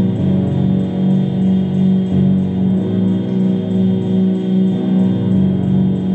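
Instrumental music of sustained low tones with a slow wavering pulse, moving to new notes about a quarter second, two seconds and five seconds in.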